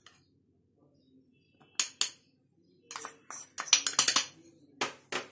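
A metal spoon clinking and scraping against a small bowl and a steel mesh strainer as cornflour is spooned and tipped in. There are a couple of clinks about two seconds in, then a denser run of clinks and scrapes over the last two seconds or so.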